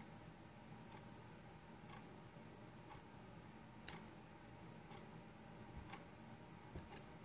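Very quiet room with a faint steady hum and a few light clicks and taps from handling: one sharper click about four seconds in and two more near the end.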